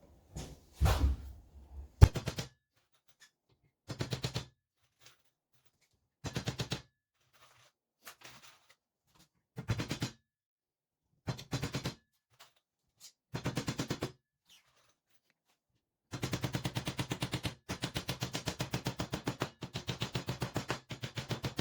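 Hammering nails into the wooden walls of a beehive super box: short bursts of very rapid knocks with pauses between them, then a longer unbroken run of fast knocks near the end.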